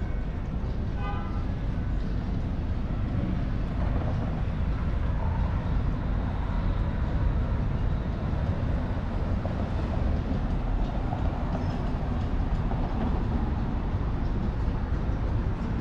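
Steady low rumble of city street traffic, with a brief high tone about a second in.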